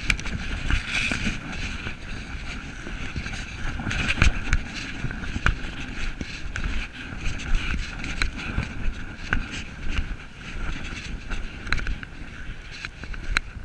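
Wind buffeting the microphone of a body-worn camera, with irregular clicks and rubbing from the camera housing and clothing as the wearer walks.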